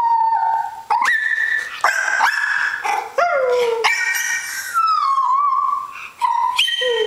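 Jack Russell terrier's high, wavering whine-howls: several drawn-out notes that slide down in pitch, with short breaks between them. A person howling at the dog sets them off.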